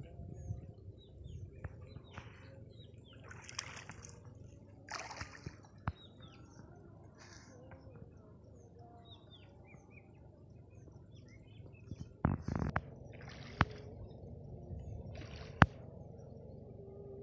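Open-field ambience over a flooded rice paddy: small birds chirping now and then in short falling notes, over a low rumble of wind on the microphone. A few brief rushes of noise and several sharp knocks stand out, the loudest knocks about three-quarters of the way in.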